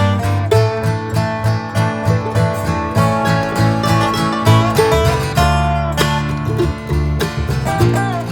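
Background music: acoustic guitar playing a quick plucked and strummed tune over a steady bass line.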